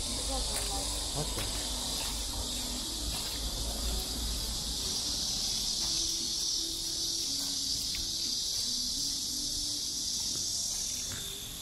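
Steady, high-pitched insect chorus from the surrounding vegetation, swelling about four seconds in and dropping off just before the end.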